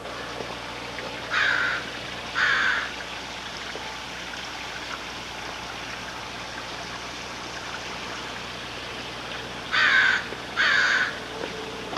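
Two pairs of short, harsh bird calls, crow-like caws, one pair a little over a second in and the other near the end, over a steady rush of water flowing in a pumped garden stream.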